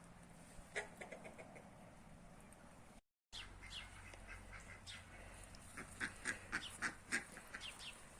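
Backyard poultry calling: a few short calls about a second in, then, after a brief break, a quick run of repeated, quack-like calls in the last couple of seconds.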